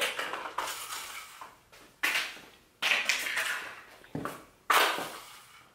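A woman coughing in four separate short fits with pauses between them.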